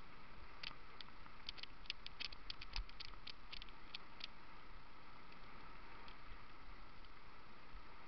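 Mountain bike rolling fast down a muddy dirt track: a steady rush of wind and tyre noise, with a quick irregular run of light clicks and rattles in the first half.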